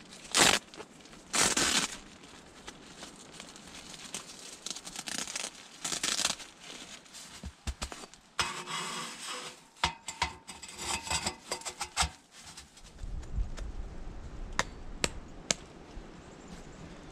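Nylon tent fabric crinkling and rustling, with scraping, ringing clinks of metal stovepipe being fed up through the tent's stove jack, then a few sharp clicks.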